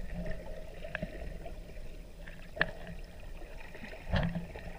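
Muffled underwater water noise picked up by a submerged camera: a steady low rumble with a few sharp clicks, the loudest a click and thump about four seconds in.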